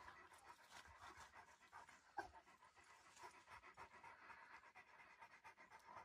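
A Turkish shepherd dog panting faintly in a quick, even rhythm, with a single click about two seconds in.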